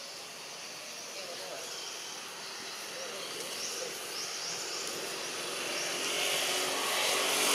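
Outdoor background with short high chirping calls repeating about once a second, and a motor vehicle growing louder over the last couple of seconds.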